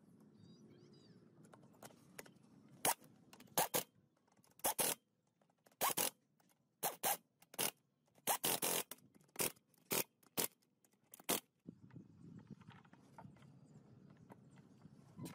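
Handheld power driver with a socket running bolts into an axle's differential housing in about a dozen short bursts, each under half a second, some in quick pairs.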